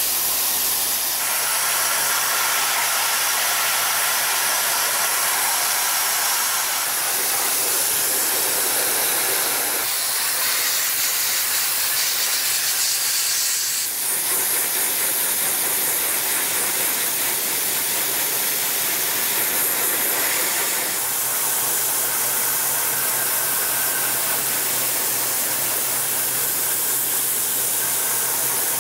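Dry ice blaster nozzle firing pellets on compressed air against a car's suspension and undercarriage: a loud steady hiss, whose tone changes abruptly a few times.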